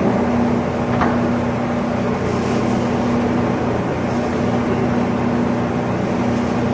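Weisser 16-inch gap-bed engine lathe running, its motor and headstock gearing giving a steady hum with one constant tone as the spindle and chuck turn. A single click about a second in.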